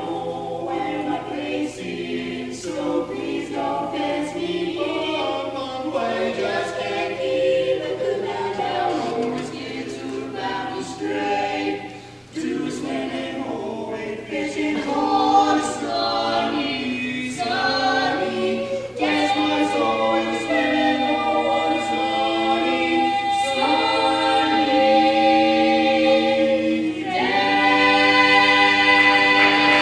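Barbershop quartet of a father and three sons (bass, baritone, tenor, lead) singing a cappella in four-part close harmony. Near the end they settle onto one long held closing chord.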